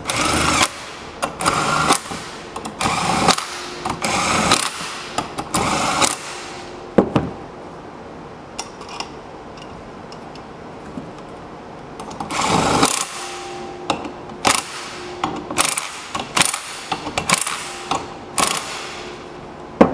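Power driver running in short bursts as it tightens the six cap bolts on a clutch cover, with a pause and then a longer run followed by quick blips near the end.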